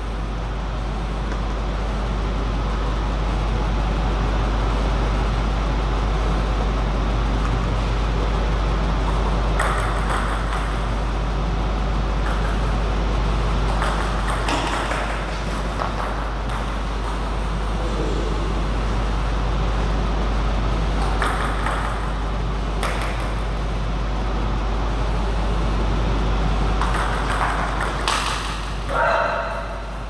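Table tennis ball clicking off rackets and the table in short rallies, with a quicker exchange near the end, over a steady low hum.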